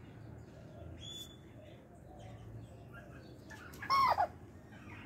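A chicken gives one loud, short squawk about four seconds in, its pitch rising and then falling. A small bird chirps briefly about a second in.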